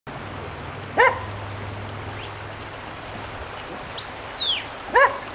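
A dog barks, a single short bark about a second in and another near the end. Between them comes a high shepherd's whistle command that rises briefly and then falls in pitch, lasting about half a second.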